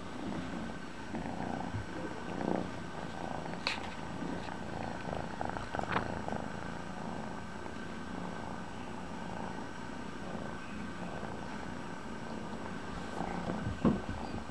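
Kitten purring steadily close to the microphone, with a few brief knocks and rustles, the loudest near the end.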